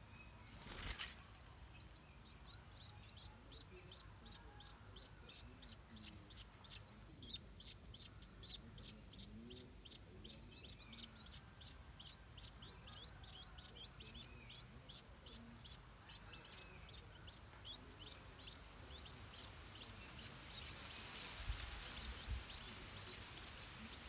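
Stripe-throated bulbul nestlings begging: faint, high-pitched chirps repeated rapidly and evenly, about two to three a second, with a single knock near the start.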